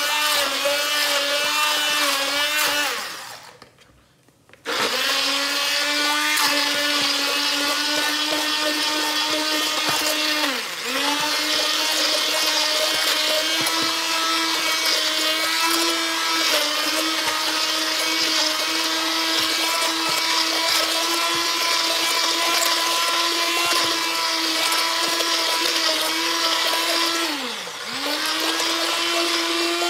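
Hand-held immersion (stick) blender running in a plastic beaker, puréeing cooked cauliflower with cream and herbs into a creamy sauce. It stops for about a second and a half about three seconds in, then starts again, and its pitch dips briefly twice.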